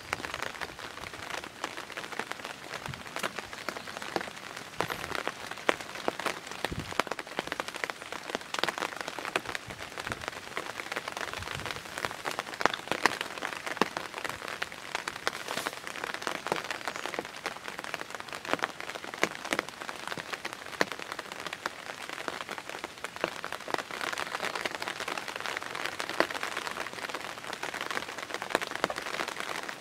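Steady patter of light rain, a dense run of small drops ticking, with a few soft low thumps in the first half.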